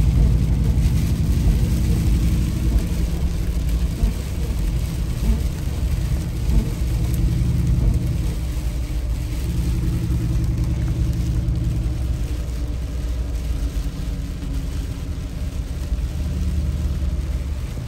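Mercedes-AMG G63 Brabus V8 engine running as the SUV drives on, heard from inside the cabin as a low drone whose pitch shifts a little with speed. An even hiss of rain and wet road lies over it.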